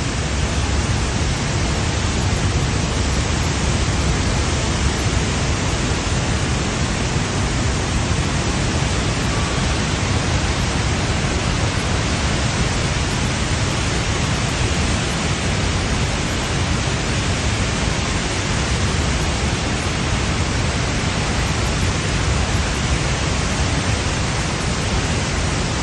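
Niagara Falls' water falling and crashing: a loud, steady roar.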